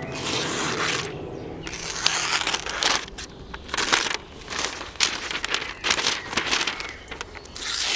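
A sheet of paper crinkling and rustling in irregular bursts as a Spyderco Maxamet folding knife slices through it: a paper-cutting test of the blade's edge.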